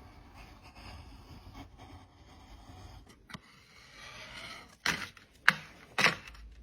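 Handling of small cosmetic containers and tools: soft scraping and rustling, a single click, then three sharp taps near the end.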